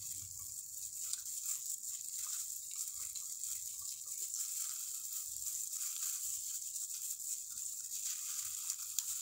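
Close-up eating sounds: soft chewing and small crackles as fried fish is picked apart with plastic-gloved fingers, over a steady high hiss.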